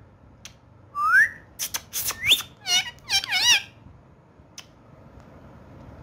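Indian ringneck parrot giving short rising whistles, then a burst of squawky chatter and clicks, all in the first three and a half seconds.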